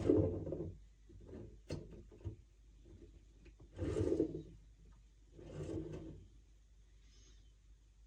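Handling noises: a knock at the start, a few light clicks, then two short scrapes about four and six seconds in.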